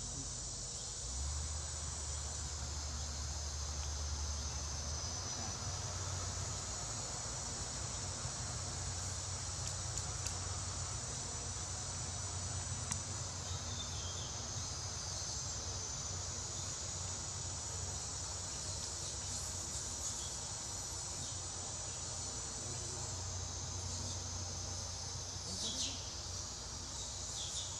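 Steady, high-pitched chorus of insects droning without a break, with a low rumble coming and going underneath.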